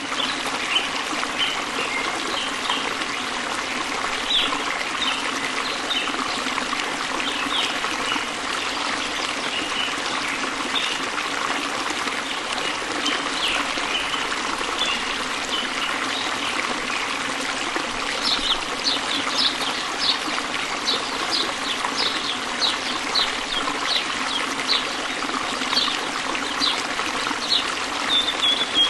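A stream trickling steadily, with birds chirping over it: short high chirps scattered through, coming thick and fast in the second half.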